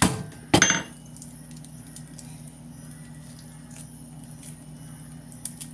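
Two sharp knocks about half a second apart: garlic cloves being smashed flat on a wooden cutting board. After that come faint small ticks and rustles of the crushed cloves being peeled by hand, over a steady low hum.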